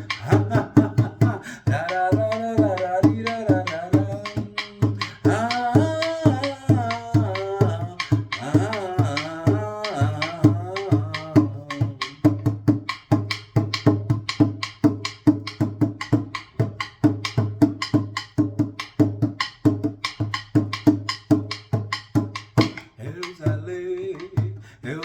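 A small hand drum (tambor) beaten in a steady, quick rhythm, several strokes a second, with a man singing over it for about the first twelve seconds; after that the drum carries on alone until near the end.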